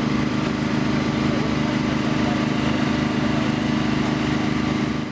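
An engine running steadily at one unchanging speed, a low even drone.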